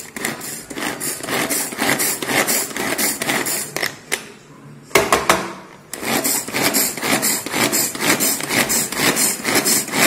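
Pigeon pull-string vegetable chopper being pulled over and over, its blades spinning through cabbage with a rapid run of clicks and rattles. It pauses briefly about four seconds in and again just before six seconds.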